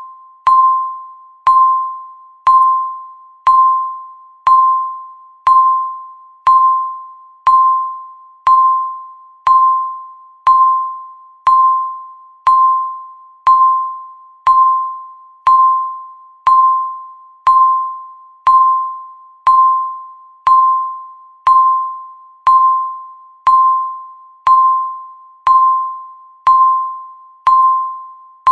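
Countdown timer's tick sound: a short ringing ping, one every second, each starting sharply and fading away before the next.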